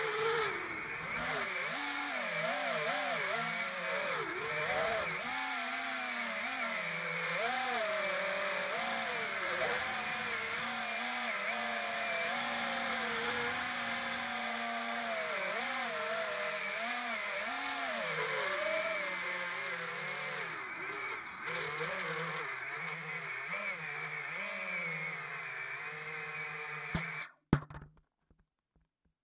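FPV quadcopter's brushless motors whining from the onboard camera, the pitch swooping up and down constantly with the throttle. Near the end a sharp knock as it lands, then the motors stop and the sound cuts off.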